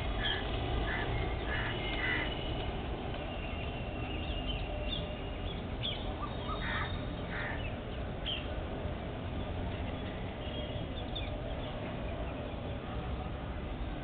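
Rose-ringed parakeets calling in short, shrill screeches, many in the first half and fewer later, over a steady low background noise.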